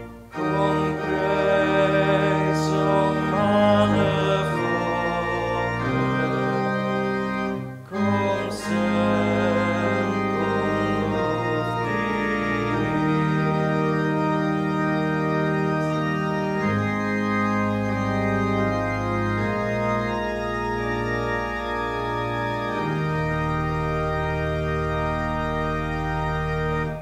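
Church organ playing slow, sustained hymn chords, with a short break about eight seconds in.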